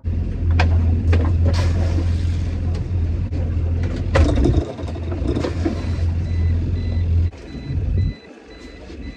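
Boat engine running with a steady low hum, with a few sharp knocks and clatters over it; the hum drops away a little after seven seconds in.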